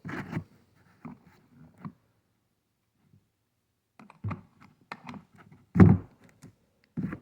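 Scattered clicks and knocks of a scrench and chainsaw parts being handled while the bar and chain are tightened. There is a quiet gap of about two seconds in the middle, the loudest thump comes about six seconds in, and another knock comes just before the end.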